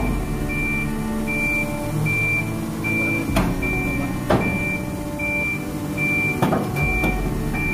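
Kobelco crawler crane's warning beeper sounding steadily, about four beeps every three seconds, over its diesel engine running. A few sharp metallic knocks cut in, near the start, in the middle and near the end.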